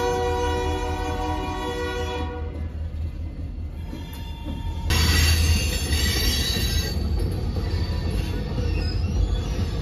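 Norfolk Southern diesel freight locomotive's multi-chime horn sounding one held chord that stops about two seconds in. After a sudden change about five seconds in, freight cars roll past with a steady rumble, and faint wheel squeal is heard near the end.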